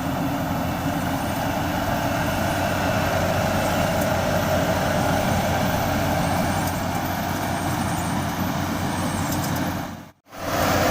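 Yanmar YH 850 combine harvester's diesel engine and machinery running steadily while harvesting rice. The sound cuts out suddenly for a moment near the end.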